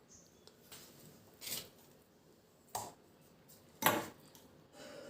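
A spoon scraping and knocking coarse ground chickpea paste out of a mixer-grinder jar into a bowl, with three sharp knocks about a second apart and a softer scrape near the end.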